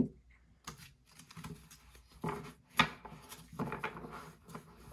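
A stack of Donruss football trading cards handled on a tabletop: a run of short rustles and card-on-card slides as the pile is gathered and squared up, with one sharper clack about three seconds in.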